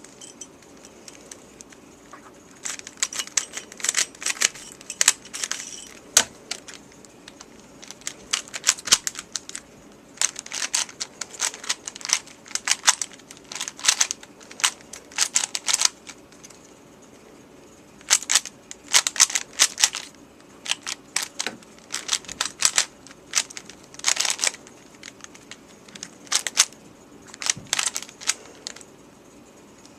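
3x3 Rubik's cube being turned fast during a speedsolve: rapid plastic clicking of the layers in bursts of one to two seconds, with short pauses between them.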